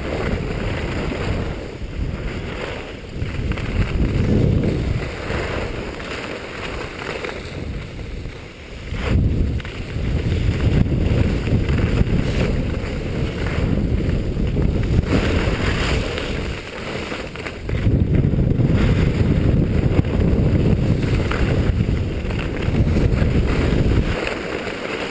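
Wind buffeting a ski camera's microphone during a downhill run, a heavy low rumble mixed with the scrape of skis on packed snow. It swells and eases several times, dipping briefly about nine seconds in and again near the end.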